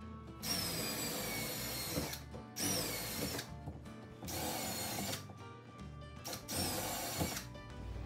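Handheld power drill enlarging pilot holes in a steel door with a larger bit: four short runs of the drill, each about one to two seconds long, the motor's whine sagging in pitch as it cuts.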